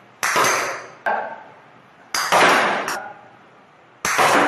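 Sharp knocks of a toy plastic cricket bat striking a ball, with the ball knocking off hard surfaces. There are four knocks, each fading out briefly in a bare, hard-walled room.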